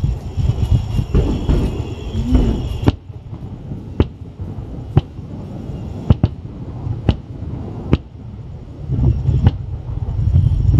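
Fireworks exploding at the Onigajo cliffs: for about three seconds a dense rolling roar of many overlapping shell bursts, then single sharp bangs about once a second. The close-packed rumbling of bursts returns near the end.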